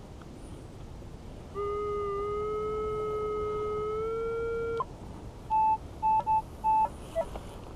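Minelab CTX 3030 metal detector sounding a steady target tone for about three seconds, rising slightly in pitch before it cuts off, followed by four short higher beeps.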